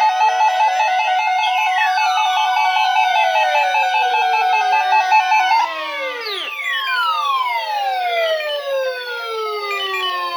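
Several weather-alert radios going off at once for a Required Weekly Test: a fast warbling alarm tone that stops about halfway through, with many overlapping siren-like sweeps, mostly falling in pitch, that keep sounding after it.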